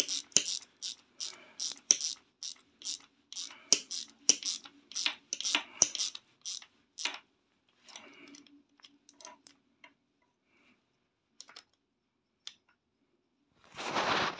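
Ratchet wrench clicking in quick runs of strokes as it turns the bolt on a Suzuki RG250 Gamma's front sprocket. The clicks thin out and stop about ten seconds in. There is a loud scrape near the end.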